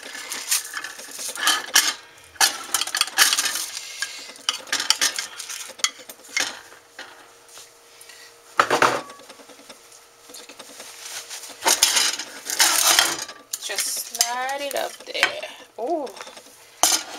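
Metal kitchen utensils scraping and clinking against a pan and a plate in irregular strokes, as cooked spinach and baked salmon are dished onto the plate.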